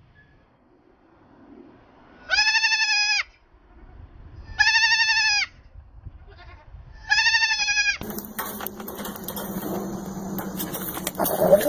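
A goat screaming three times, each a loud, steady, drawn-out cry of under a second, spaced about two seconds apart. After that come a noisy stretch with clicks and handling sounds and a short bleat near the end.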